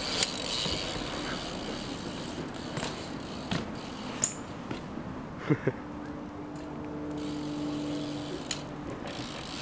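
BMX bike rolling over brick paving, with scattered clicks and knocks from the bike and tyres. A faint steady hum comes in about six seconds in and fades near the end.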